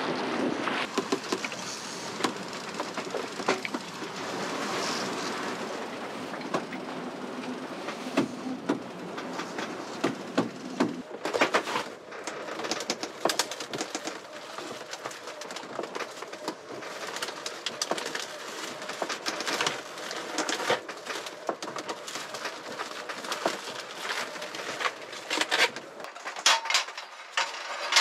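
Sailboat under way at sea: steady rushing of water and wind. From about eleven seconds in there are frequent sharp knocks and clatter.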